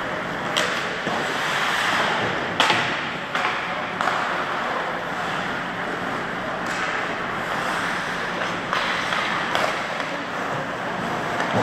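Ice hockey play: a steady wash of rink noise with about half a dozen sharp cracks of sticks and puck scattered through, the loudest about two and a half seconds in.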